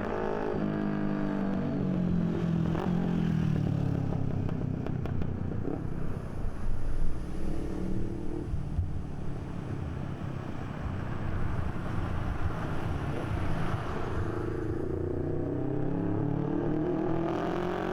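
Carbureted Honda CB500 parallel-twin running through a Yoshimura slip-on exhaust. The exhaust note drops in pitch over the first few seconds, holds steady with a brief louder rough patch in the middle, then climbs again near the end as the engine is revved up.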